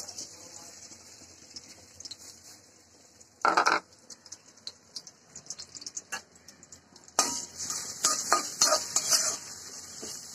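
Sliced onions, green chillies and garlic hit hot oil in an aluminium karahi and sizzle at once, a steady hiss throughout. A brief loud clatter comes about three and a half seconds in, and in the second half a metal spatula stirs and scrapes against the pan over the sizzle.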